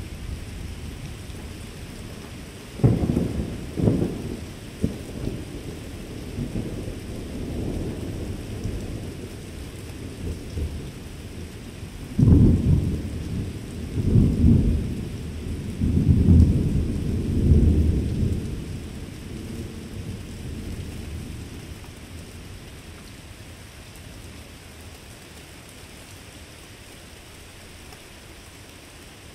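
Thunder over steady rain: two sharp claps about three seconds in, a lighter roll, then a longer series of heavy low rumbles around the middle that dies away, leaving only the rain.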